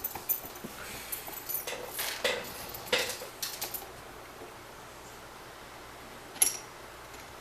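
Metal-on-metal clinks and clatters of brass padlocks being handled and changed over in a vise: a run of knocks and clinks over the first four seconds, then a single sharp click about six and a half seconds in.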